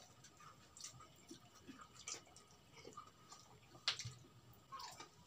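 Faint close-up eating sounds: chewing and mouth clicks of fried chicken being eaten, with soft scattered ticks as the meat is pulled apart by hand, and one sharper click about four seconds in.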